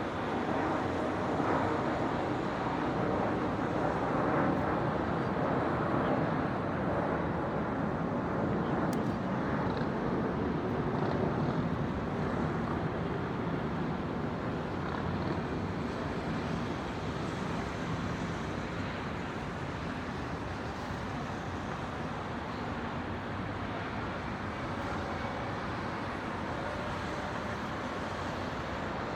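Steady wash of city traffic noise, a bit louder for the first several seconds and then even.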